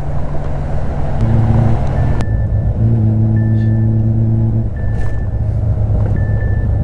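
Honda Gold Wing GL1500 ridden at highway speed: a steady low rumble of engine, wind and road. Two held low tones sound over it, the first a second long and the second about two seconds, and short high beeps repeat every second or so.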